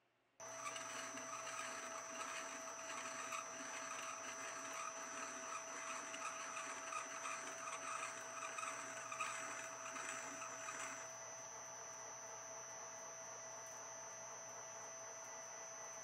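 Metal lathe running with a steady motor whine while an internal threading tool cuts an Acme thread inside a bronze leadscrew nut, a scraping cutting noise on top. The cutting noise fades about eleven seconds in, leaving the lathe running on its own.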